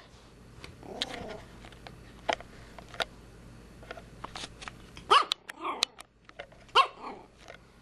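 Pomeranian puppy giving short, high yappy barks, the two loudest a little over a second and a half apart in the second half, with light clicks and taps in between.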